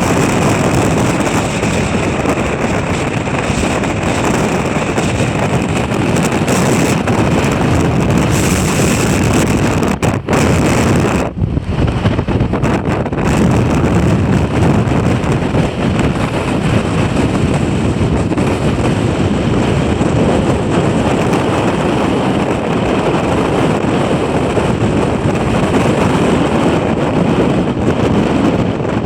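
Gale-force wind on an exposed winter mountain ridge buffeting the microphone: loud, continuous wind noise, with a short lull and a few sharp dropouts about ten to twelve seconds in.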